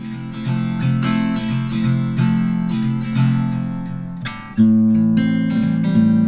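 Background music: acoustic guitar strumming, getting louder about four and a half seconds in.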